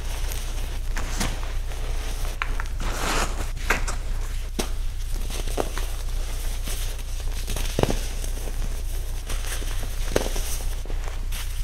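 Hands squeezing and crumbling clumps of packed, dyed baking soda powder, giving irregular soft crunches and dry crackles as the clumps break apart.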